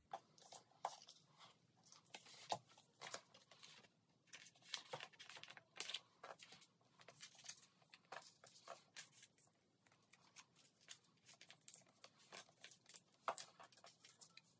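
Faint, irregular crinkling and rustling of clear plastic binder pocket sleeves as cards are slid into them and the pages are handled.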